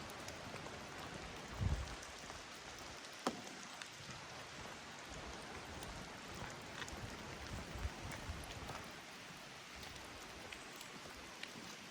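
Steady rain falling, an even hiss with scattered sharper drop ticks. Two short low thumps stand out, about two seconds in and again near eight seconds.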